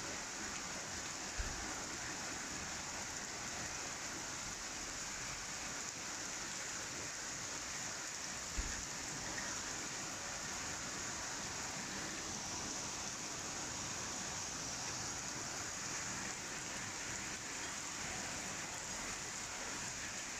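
Rain falling steadily on garden plants and surfaces, a continuous even hiss of drops. Two brief low thumps come about a second and a half in and about eight and a half seconds in.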